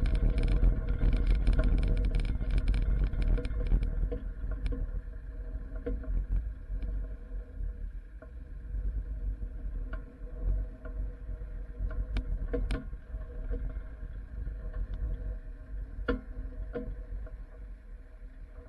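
Pickup truck driving slowly over rough, frozen scrapyard ground while towing another pickup: a steady low engine and road rumble, with a crackling rattle for the first few seconds and a handful of sharp clanks later on from the rig jolting over bumps.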